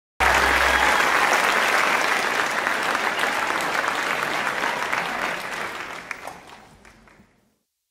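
Studio audience applauding, the clapping steady at first, then thinning and fading out over the last couple of seconds.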